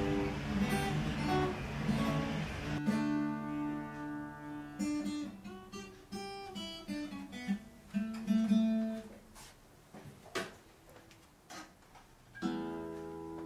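Acoustic guitar played slowly: single plucked notes and chords ring out and fade away, thinning to a quiet lull with a few faint clicks. A fuller strummed chord rings out near the end.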